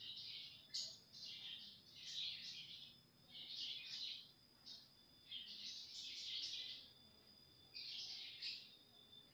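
Faint bird chirping: irregular bursts of high chirps every second or so, over a thin, steady high-pitched whine.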